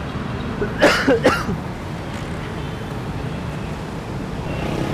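Steady rumble of road traffic, with two short, loud vocal sounds about a second in.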